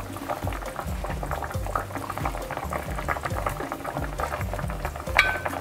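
Tomato braising sauce bubbling at a simmer in a pot, with small rapid pops. One metal spoon clinks against the pot or plate near the end.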